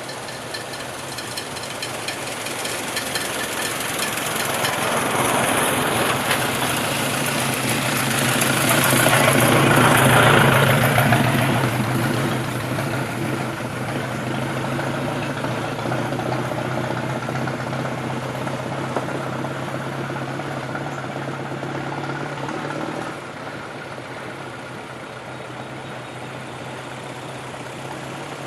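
Vintage car driving past: its engine grows louder to a peak about ten seconds in, then fades away over a steady engine drone that drops a little near the end.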